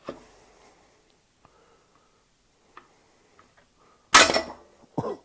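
A hammer blow on a bottom bracket removal tool, a loud sharp metal strike about four seconds in with brief ringing, driving the press-fit Raceface BB92 bottom bracket out of the frame; a second, lighter knock follows about a second later. A few faint clicks come before it as the tool is set in place.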